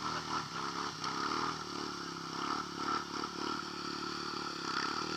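Honda Rancher 420 ATV's single-cylinder four-stroke engine, fitted with an HMF aftermarket exhaust, revving up and down under load as the quad churns through a mud hole.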